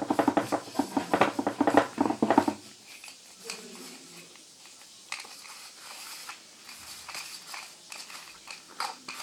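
Rapid scratchy rubbing and clinking of small metal fan parts being wiped clean, lasting about two and a half seconds, then quieter scattered clicks of the parts being handled.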